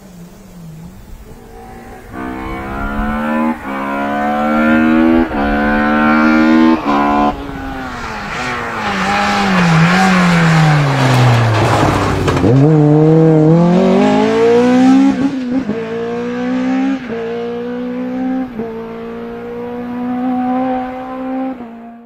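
Race car engine at full throttle, its pitch climbing and breaking with several quick upshifts, then falling for several seconds, then climbing again through more upshifts.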